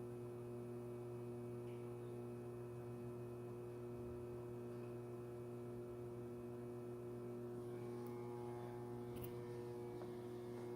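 Steady low electrical hum from a Sierra Therm conveyor furnace as it heats up under power, unchanging throughout, with a faint tick near the end.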